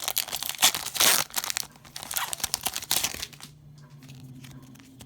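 Foil Pokémon TCG booster pack wrapper being torn open and crinkled: loud tearing and crinkling that stops about three seconds in, leaving only a few faint ticks.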